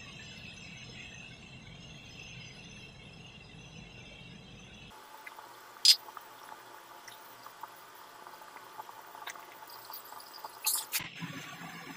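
Thick spice marinade poured from a steel bowl over mutton in a steel tray, then rubbed over the meat by a gloved hand, with faint wet handling sounds and one sharp click about six seconds in.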